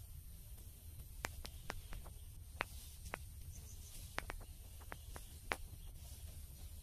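Phone handling noise: scattered light clicks and taps at irregular intervals over a low, steady rumble.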